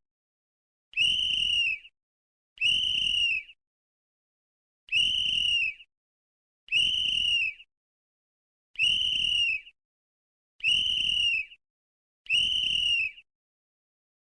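Sports referee's whistle blown in seven short blasts, each just under a second long, with uneven pauses between them. Each blast holds one steady high pitch.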